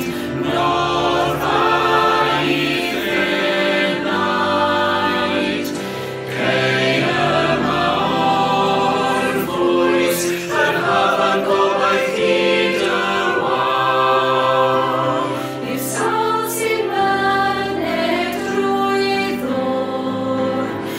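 Virtual choir of mixed women's and men's voices singing a Welsh-language choral song in held, sustained harmony.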